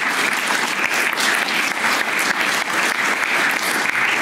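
Audience applauding in a hall: a steady, dense patter of many hands clapping.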